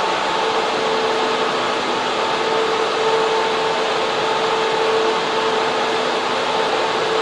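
Server room cooling fans running in a steady loud rush, with a constant hum on top.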